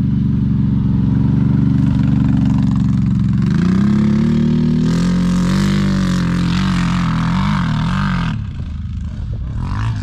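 CF Moto 1000 ATV's V-twin engine running at steady throttle, then revving up about three and a half seconds in with its pitch wavering. It drops off suddenly near the end as the quad pulls away.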